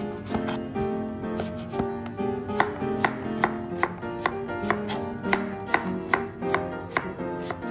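Kitchen knife slicing peeled pumpkin on a white cutting board, the blade knocking on the board in a steady rhythm about twice a second, sharper from about two and a half seconds in. Background music plays underneath.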